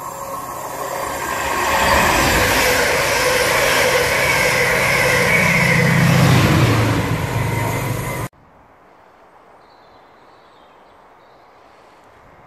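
A loco-hauled passenger train runs through the station without stopping, the rumble of wheels on rail swelling as it nears. The engine hum of its Class 68 diesel locomotive is loudest as the locomotive at the rear goes past. The sound cuts off suddenly about eight seconds in, leaving only faint outdoor background.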